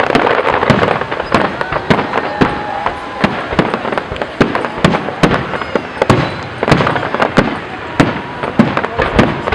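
Fireworks display: shells bursting in rapid, overlapping succession, many sharp bangs a second over a continuous crackling haze.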